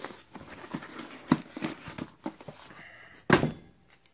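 Clicks and knocks of small metal pieces and hand tools being handled on a jeweler's workbench, with one louder knock a little over three seconds in.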